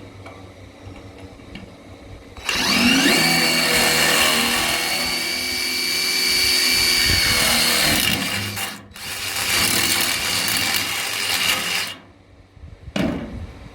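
Electric drill boring a hole through a metal beam and connector. The motor whines up to speed about two seconds in and drills steadily, stops for a moment, drills again, then cuts off, with one short final burst near the end.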